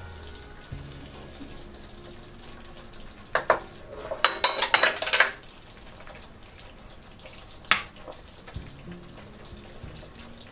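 Beef and onions in sauce sizzling softly in a frying pan. Over it, ceramic plates clatter and clink as they are set down and stacked, a run of knocks about three and a half to five seconds in, then a single clink near eight seconds.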